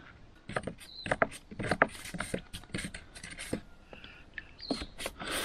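Irregular sharp metallic clicks and small crackles, several a second and uneven in strength, from steel contacts at a salt-water electrolysis setup: rusty roller chain and battery-charger clamps touching.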